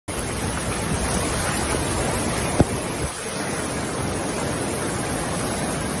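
Floodwater rushing in a fast torrent down a street, a steady rushing noise with no let-up. A single sharp knock sounds about two and a half seconds in.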